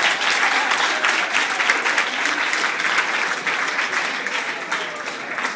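Audience applauding: a dense patter of many hands clapping, easing off a little near the end.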